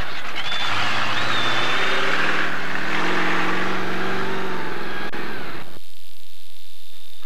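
Ford-bodied monster truck's engine running hard at high revs, its pitch climbing as the truck accelerates. The engine sound breaks off suddenly near the end.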